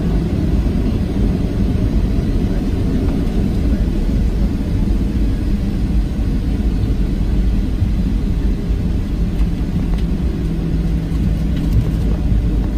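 Steady low rumble of a Boeing 737-700's CFM56-7B engines and airframe heard from inside the passenger cabin, the engines running evenly at low power before takeoff with no spool-up.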